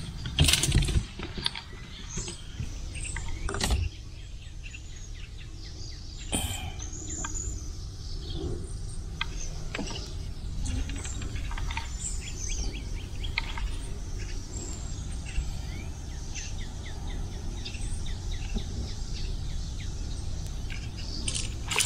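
A few sharp knocks in the first seconds from gear being handled in a fibreglass boat, then a steady low rumble with many short bird chirps.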